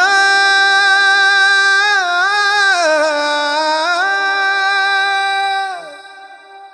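A male singer holds the song's final long high note, one drawn-out vowel with a few melodic turns in the middle, with almost nothing under it. The note slides down slightly and stops about six seconds in, leaving a short fading echo.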